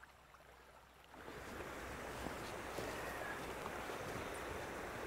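Shallow stream running over stones in a riffle: a steady rush of water that comes in suddenly about a second in, after a faint stretch with a few small clicks.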